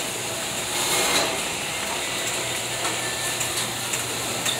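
Wire shopping cart rattling and clicking as it is pushed along, over a steady low hum.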